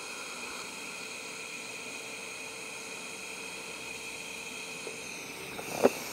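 TIG welding arc hissing and buzzing steadily with a high whine while tacking 316 stainless steel exhaust tubing. A short metallic knock near the end.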